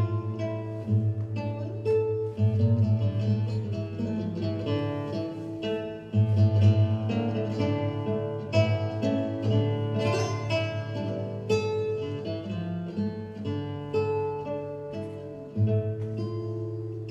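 Background music on plucked strings, like an acoustic guitar: picked notes ringing and dying away over a held low bass.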